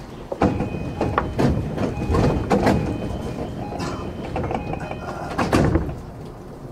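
Sliding passenger doors of a JR E233-6000 series electric train at a station stop: a run of knocks and thuds with short chime-like tones in between, the loudest thud about five and a half seconds in, as the doors work before departure.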